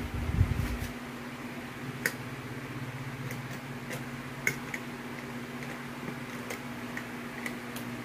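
Light clicks and taps of hands handling a black metal motorcycle top box and its steel latch, a few scattered seconds apart, after a brief rumble of handling at the start, over a steady low hum.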